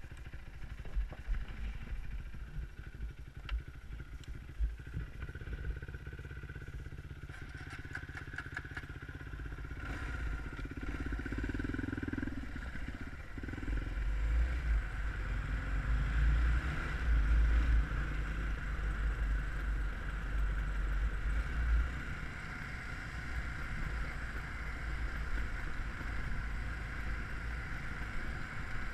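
Dirt bike engine running while it is ridden over rough off-road ground, with wind buffeting the helmet-mounted microphone. It grows louder about halfway through, with scattered clattering from the bike over bumps.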